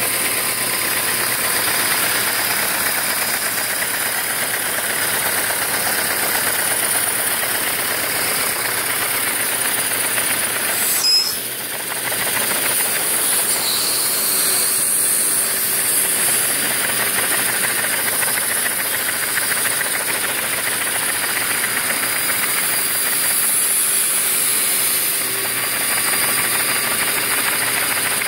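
LEGO four-cylinder overhead-cam vacuum engine running fast on a vacuum cleaner's suction: a steady, noisy rush of air drawn through the engine. A single sharp knock about eleven seconds in, after which the sound dips briefly.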